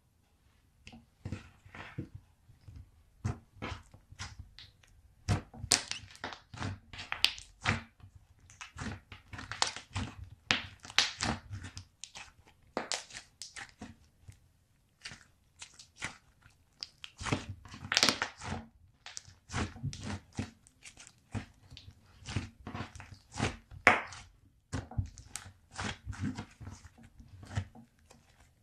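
Slime being squished and kneaded by hand, making irregular sticky clicks, crackles and soft thuds.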